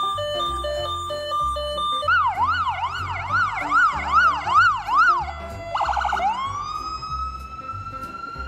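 Electronic ambulance siren cycling through its modes. It starts with a two-tone hi-lo alternating about three times a second, switches about two seconds in to a yelp sweeping up and down about twice a second, gives a short fast warble, then sets into a slowly rising wail.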